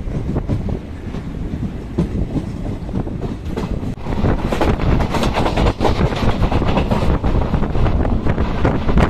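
Passenger coaches of an Indian express train rumbling as the train rolls slowly out of a station, heard from the open doorway. About four seconds in, the sound jumps louder to the train running at speed, its wheels clacking rapidly over the rail joints.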